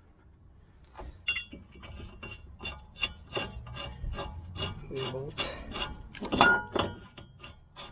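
Steel wheel nut being spun by hand onto a wheel stud to hold a new brake disc on the hub: a quick, uneven run of metallic clicks and scraping that starts about a second in.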